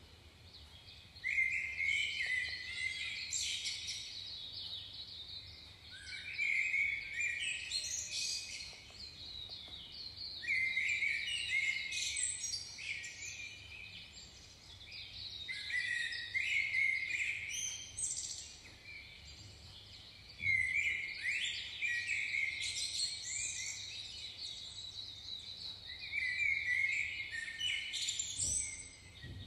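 Birdsong: short phrases of chirps and quick pitch glides, repeating about every five seconds, over a faint low hum.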